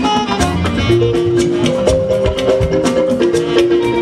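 Instrumental passage of Fuji band music: a dense run of drum and percussion strokes under long held melody notes, with no singing.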